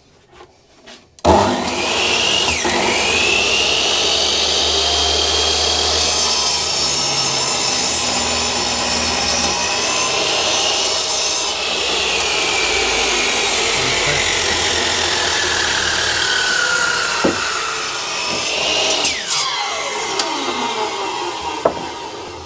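Electric power saw cutting a long timber plank, its motor whine sagging in pitch under load and recovering through a cut of nearly twenty seconds. It starts sharply about a second in and the motor winds down near the end.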